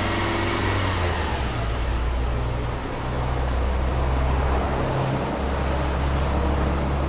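Subaru Legacy Touring Wagon 2.5i's 2.5-litre flat-four boxer engine idling steadily, a low, even exhaust note at the tailpipe.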